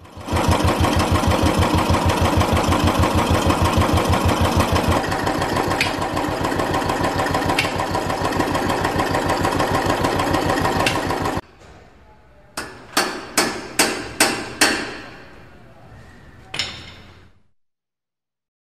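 Royal Enfield Classic 350's single-cylinder UCE engine running at idle with its valve train exposed, a steady thumping beat with a metallic tappet rattle over it, which most commonly comes from poor oil flow or a valve-train fault. The engine sound cuts off abruptly about eleven seconds in. A quick run of about six sharp knocks follows, then one more, each ringing briefly before fading out.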